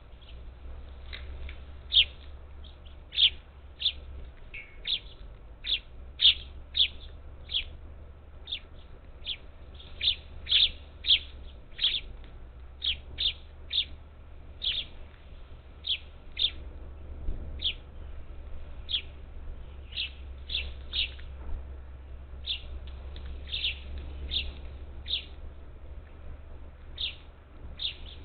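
Parakeets at a feeder, giving short calls one or two a second, over a faint low hum.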